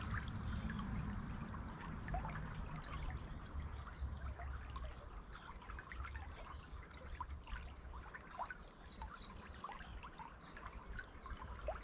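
Shallow stream water trickling and babbling steadily over its bed, with a low rumble underneath that is strongest in the first couple of seconds.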